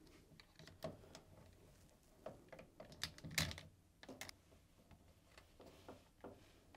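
Faint, scattered small clicks and taps of plastic and metal as the electrical connectors are worked off a washing machine door lock with a flathead screwdriver, a few of them coming close together about three seconds in.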